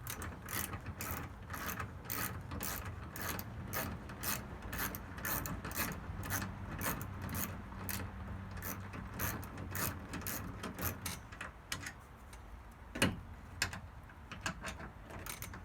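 Hand ratchet clicking in a steady run of short strokes, about three clicks a second, stopping after some twelve seconds, followed by one sharper knock about thirteen seconds in.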